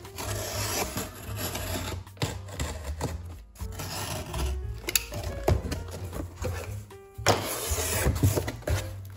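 Background music, over the rustle and scrape of a cardboard shipping box being slid across a table and its packing tape slit with a box cutter, with a few sharp clicks. The box's flaps are pulled open near the end.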